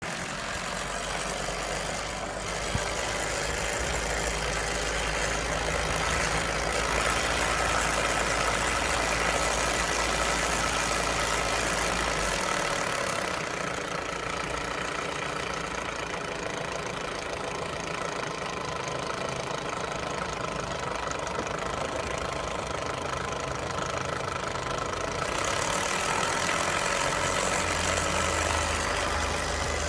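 Nissan Micra K11 engine running at idle with a rattle. The running note steps down slightly about 13 seconds in and comes back up near 25 seconds.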